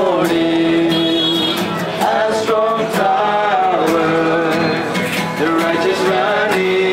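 Outdoor hymn singing: voices singing long held notes to a strummed acoustic guitar.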